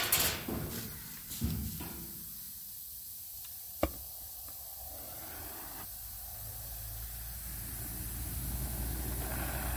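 A few light metal knocks, then a sharp click about four seconds in as a lighter lights an oxy-acetylene welding torch. The torch flame then hisses and rumbles, growing steadily louder toward the end.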